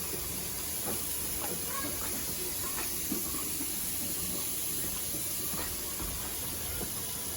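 Steady high-pitched background hiss with a few faint, scattered clicks and taps.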